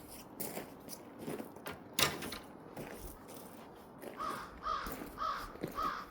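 Scattered knocks and scrapes, with one sharp knock about two seconds in, then a crow cawing four times in quick succession near the end.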